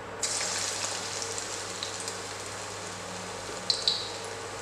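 Portions of chicken keema pakoda batter dropped into hot oil, starting suddenly to sizzle and crackle as they fry. Two sharp pops come near the end.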